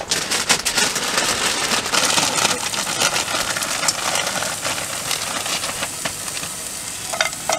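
Sliced onions frying in hot oil in a frying pan on a camping gas stove: a steady sizzle, full of small crackles.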